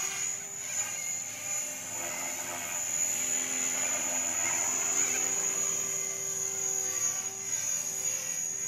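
Align T-Rex 500 electric RC helicopter in flight, a steady whine from its motor and rotor blades that grows louder around the middle as it comes closer. A thin, steady high-pitched tone runs underneath.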